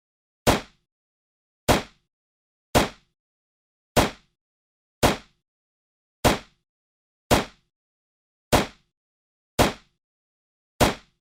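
9mm pistol firing single shots at an even pace, about one a second, ten shots in all, each a sharp crack that dies away quickly with silence between.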